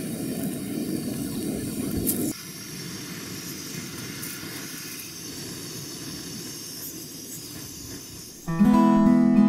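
Water at a rolling boil in a metal pot over a backpacking canister gas stove, bubbling and hissing with the burner. About two seconds in the sound drops to a quieter steady hiss, and strummed acoustic guitar music comes in near the end.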